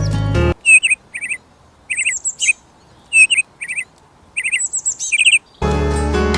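A bird chirping in quick runs of two to four short high notes, with pauses between the runs. Background music plays at the start, cuts off, and comes back near the end.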